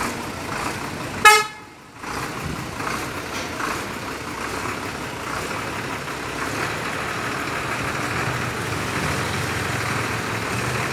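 A vehicle horn gives one short, loud toot about a second in, over steady engine and road traffic noise that grows slightly stronger toward the end.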